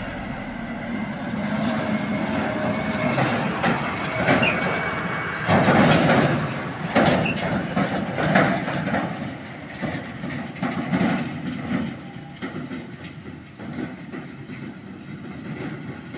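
Claas Arion tractor driving past towing a tall-framed silage trailer: engine running with the trailer clattering and rattling, loudest as it passes close about six to nine seconds in, then fading as it drives away.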